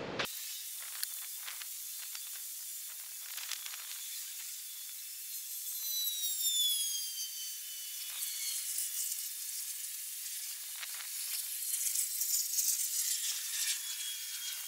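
Fast-forwarded outdoor ambience with the low end gone: a thin, high hiss with scattered ticks, and a few falling whistle-like tones about five to seven seconds in.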